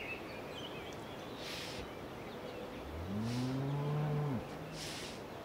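A Holstein-Friesian cow mooing once, about three seconds in: a single call of about a second and a half that rises in pitch and then holds before breaking off. Faint birdsong chirps underneath.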